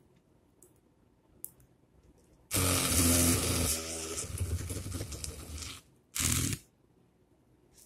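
Small 12 V brushed DC motor of a homemade pen-body drill, powered by a 3.7 V lithium-ion cell, running with a buzz for about three seconds as its bit bores through a thermocol sheet, fading as it goes; a second short burst follows about six seconds in.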